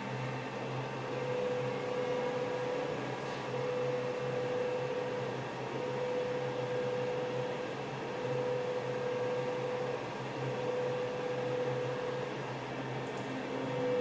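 Laser plastic-welding machine running: a steady fan-like hum and hiss, with a mid-pitched tone that sounds in stretches of about two seconds, broken by short gaps, about six times.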